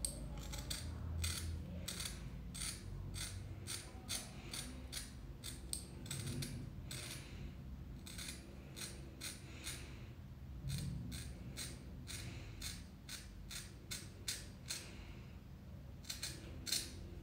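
Scissors snipping repeatedly through a lock of wet hair: quick runs of sharp snips, about two or three a second, broken by a few short pauses.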